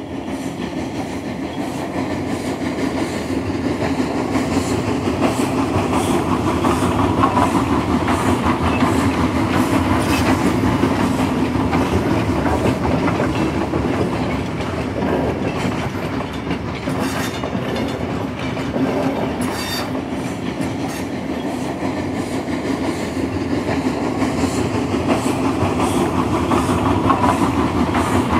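A train running along its track, a steady rumble with rail clatter, growing a little louder over the first few seconds.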